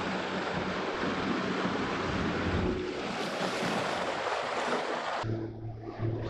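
Wind buffeting the microphone and water rushing and spraying off a moving jet ski, its engine a low hum underneath. About five seconds in the sound changes abruptly to a steadier engine drone with less wind.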